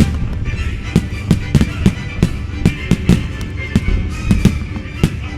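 Aerial firework shells bursting, about a dozen sharp bangs at irregular intervals, over music.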